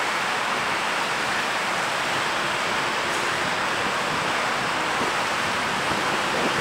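Steady rush of turbulent, churning river water beside the hurricane barrier, an even hiss-like noise with no breaks.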